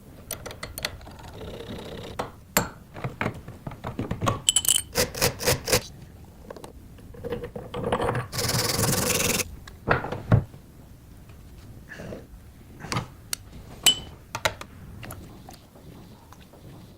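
Small metal parts and tools clinking, tapping and scraping as the old coffee grinder is handled and worked on, with a quick run of about five strokes and about a second of steady hiss midway.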